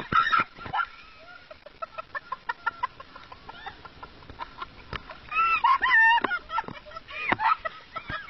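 Pool water splashing and bubbling around a camera held underwater, then a burst of short, high-pitched squeals of laughter about five seconds in and again a little later.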